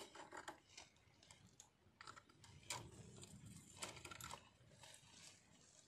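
Faint, scattered clicks and light rustling from fishing tackle being handled while a tangled line is sorted out.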